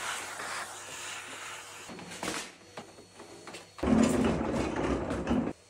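Henry cylinder vacuum cleaner running, its wand sucking along a concrete floor. It gets louder and fuller about four seconds in, then cuts off abruptly just before the end.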